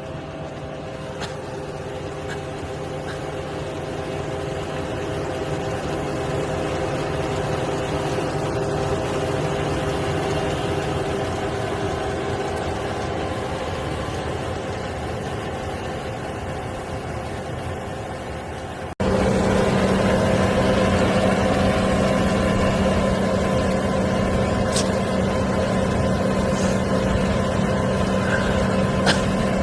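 Farm tractor engine running steadily while working a rotary tiller and bean seeder. About two-thirds of the way in the sound cuts abruptly to a louder, steadier engine drone.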